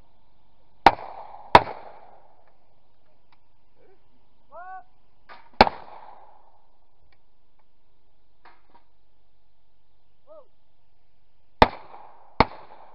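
Five shotgun shots: two quick pairs, each pair less than a second apart, and a single shot between them. Each is a sharp crack with a brief echoing tail.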